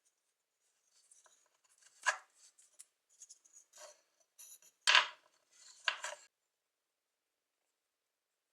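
Irregular scraping and rubbing on an old kitchen knife, with three louder strokes about two, five and six seconds in.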